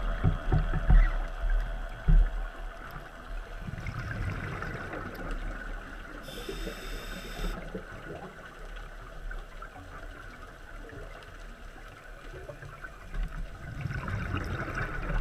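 Scuba diver breathing through a regulator underwater: low bubbling gurgles from the exhaled air, and one hissing inhale about six seconds in.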